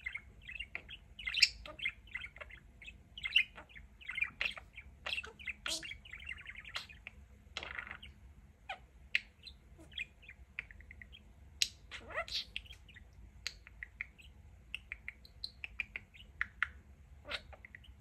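Pet budgerigar chattering: a fast, irregular stream of short chirps, clicks and warbles.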